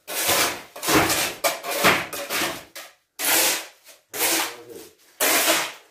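Steel shovel scraping across the ground and through wet concrete mix, about six separate rasping strokes with short pauses between them, as the last of the spilled concrete is scooped up.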